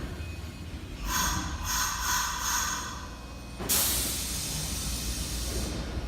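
Nagoya subway train just halted, releasing compressed air: about four short puffs of hiss, then a sudden longer blast of air hiss lasting about two seconds.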